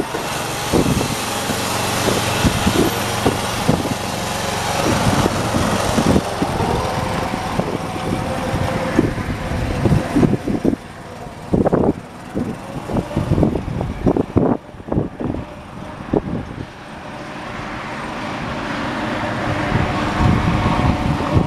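1979 John Deere 214 lawn tractor's engine running as the tractor drives away, growing fainter about halfway through, with irregular thumps of wind buffeting the microphone.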